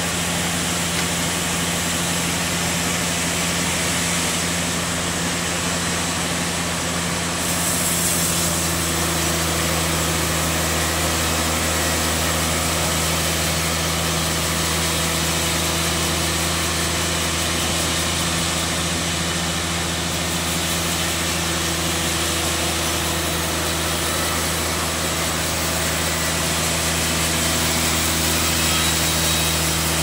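Band sawmill machinery running steadily between cuts, a constant low hum with several steady tones; a little more hiss comes in about eight seconds in.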